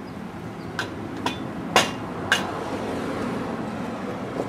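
Four sharp metallic clicks and clinks about half a second apart, the third the loudest, some briefly ringing: metal tools or engine parts being handled during a V8 teardown. A steady low hum sits underneath.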